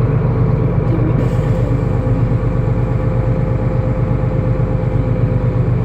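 Solaris Urbino 12 city bus running while it drives, heard from inside the passenger cabin: a steady low drone with a steady whine above it.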